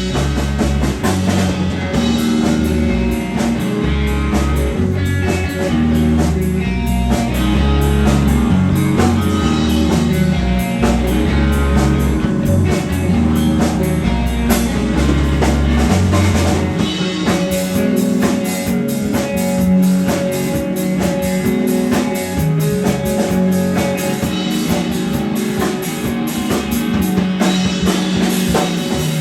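Rock band playing an instrumental passage with electric guitar, bass and drum kit. The deepest bass drops away a little past halfway while the drums and guitars carry on.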